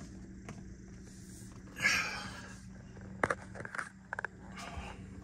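Handling noises inside a car cabin: a brief rustle about two seconds in, then a few short sharp clicks, over a steady low hum.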